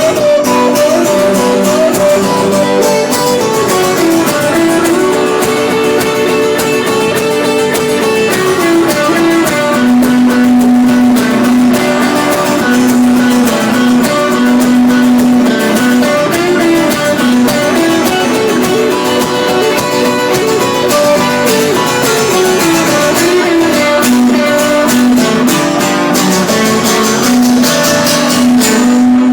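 Live guitar music: guitars strummed steadily, with a melody line moving above and a long held low note in the second half.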